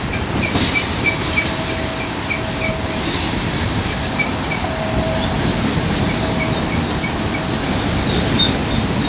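Freight train tank cars and covered hoppers rolling past close by, a steady rumble with wheel clatter. Short high squeaks repeat a few times a second, and a wheel squeal comes and goes.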